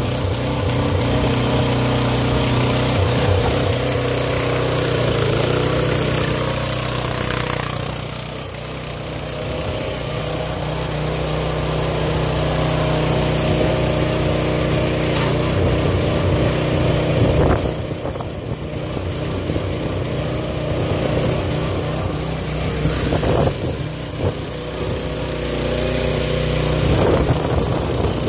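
2023 AgroTK H15 mini excavator's engine running steadily as the machine travels on rubber tracks, its note shifting now and then, with a couple of brief knocks partway through.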